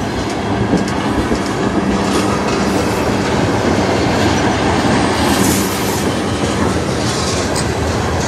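Freight train cars, black tank cars followed by centerbeam flatcars loaded with lumber, rolling past close by: a steady rumble and rattle of steel wheels on the rails, with a few clacks.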